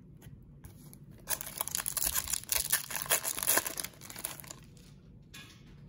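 Football card pack wrapper being torn open and crinkled, a dense crackling from about a second in to about four seconds in.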